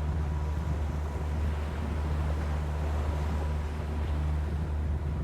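Lagoon 42 catamaran's diesel engine running at a steady low drone, with wind and water hissing past the boat.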